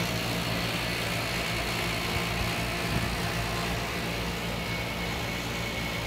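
Trane Odyssey HVAC outdoor unit running steadily: a low motor hum with a rush of air from its condenser fan.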